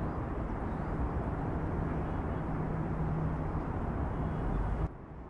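Steady low rumble of a moving vehicle with a faint steady hum, cutting off suddenly near the end.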